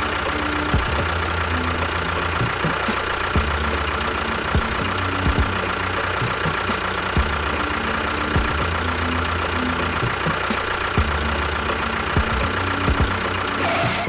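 An engine running steadily at idle, a dense, even drone with no break.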